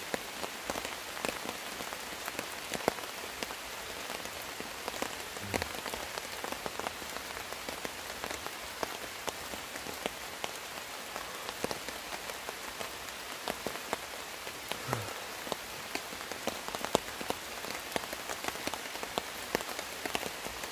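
Steady rain, with many single drops ticking close by.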